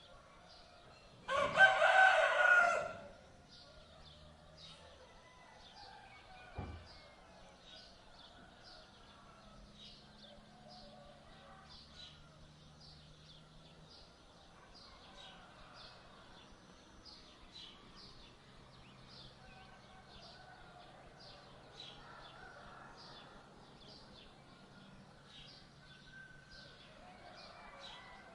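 A rooster crows once, loud, about a second in, for about a second and a half. Afterwards small birds keep up faint, repeated high chirping in the background.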